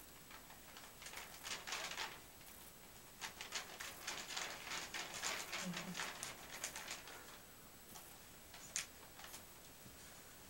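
Faint, irregular rustling and light taps of hands and clothing from people signing, coming in quick clusters and dying away in the last few seconds.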